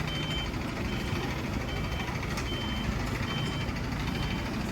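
Electronic warning beeper of a machine or vehicle on the site sounding in a steady series, about one high beep every 0.8 seconds, over the steady rumble of a running diesel engine.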